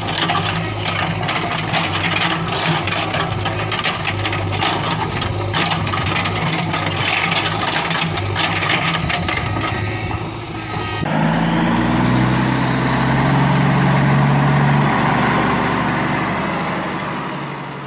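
Truck engine sound effect running with a clattering idle. About eleven seconds in it cuts abruptly to a smoother engine sound whose pitch steps up and down, and this fades out at the end.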